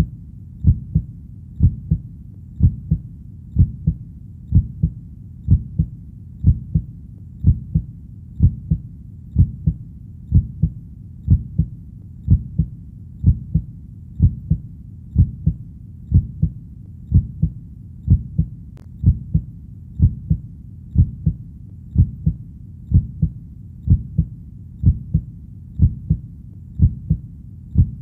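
Steady heartbeat, each beat a low double thump (lub-dub), repeating evenly at about one beat a second.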